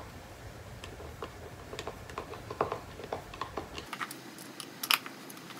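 Hand screwdriver driving a screw into a white flat-pack furniture panel: a run of small, irregular clicks and ticks as the screwdriver turns and the screw bites, with one sharper click near the end.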